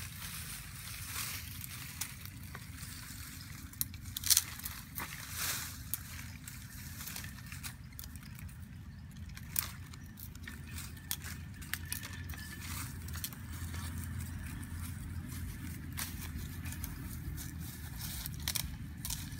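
Thin leafy tree branches snapped and stripped by hand: sharp cracks and leaf rustling at irregular intervals, the loudest crack about four seconds in.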